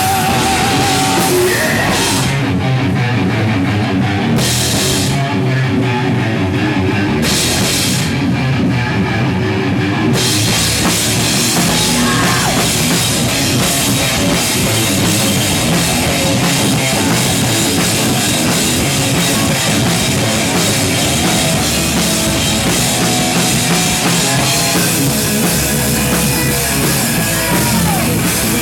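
Live hard rock band playing loud: distorted electric guitar over bass and a drum kit, with the cymbals dropping out for a few seconds at a time a couple of seconds in.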